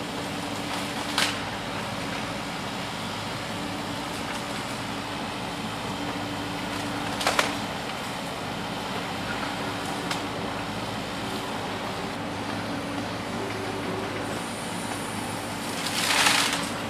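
Excavator and dump truck working: a steady engine-like hum, with sharp knocks about one and seven seconds in and a brief, louder scraping burst near the end.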